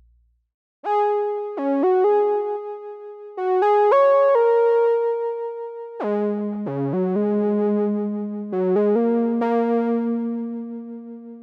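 TAL J-8 software synthesizer, a Roland Jupiter-8 emulation, playing a factory preset: a short keyboard phrase of sustained notes starting about a second in. A lower line of notes joins about halfway through, and the phrase fades out near the end.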